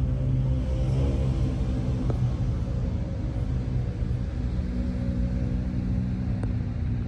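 A motor engine running steadily, a low drone with a rumble beneath it.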